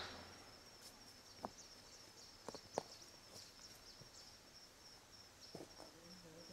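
Near silence: faint outdoor ambience with a steady high-pitched trill and a few soft clicks.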